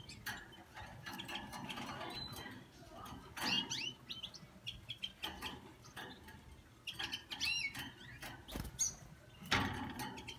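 Caged goldfinches giving short bursts of twittering chirps, about a third of the way in and again a little past the middle. Between them come scattered clicks and flutters as the birds hop and flap about the wire cage, with a louder burst of noise near the end.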